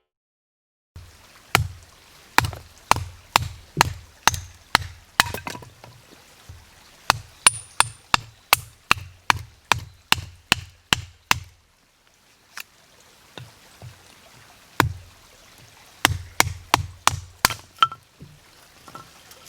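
Repeated sharp blows of a tool striking something solid, about two a second, each with a short low thud. There is one long run of blows, a pause, then a shorter run.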